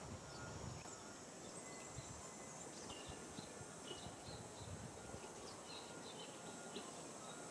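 Faint outdoor ambience: insects droning steadily at a high pitch, with scattered short high chirps through the middle.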